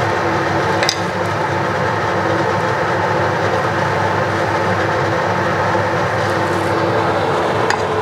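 Steady, loud rushing drone of a running fan, with two light clicks from a wooden spatula against the pan, one about a second in and one near the end.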